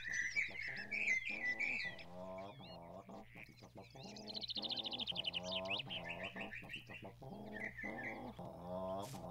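Birds chirping, with a fast high trill midway, over a soft low pitched pattern repeating about twice a second.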